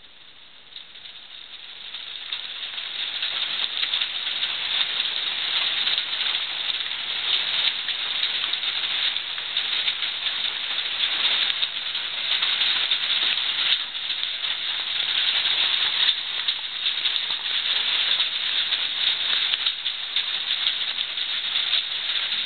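Heavy tropical rain pouring down: a dense, steady patter that builds over the first few seconds and then holds.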